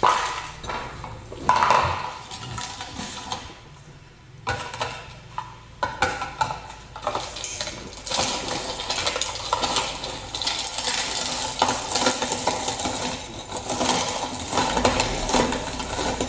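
Metal clinking, clattering and scraping of a manual meat grinder's parts being handled and worked: scattered knocks at first, then dense continuous rattling from about halfway in.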